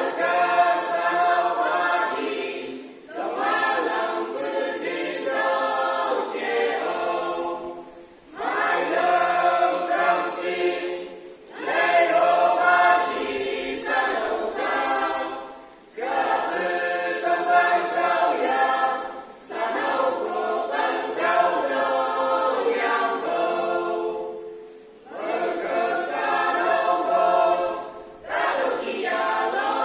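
Small mixed choir of young men and women singing a song unaccompanied, in phrases of a few seconds with short breath pauses between them.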